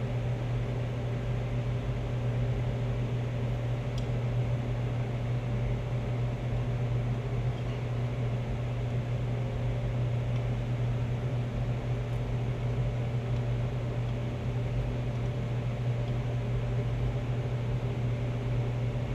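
Steady low mechanical hum with a hiss, unchanging throughout, and one faint click about four seconds in.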